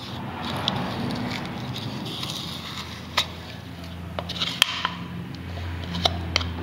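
A metal spoon scrapes thick heavy cream out of a plastic tub into a plastic bowl, giving soft squishing with a few light clicks of the spoon against the plastic.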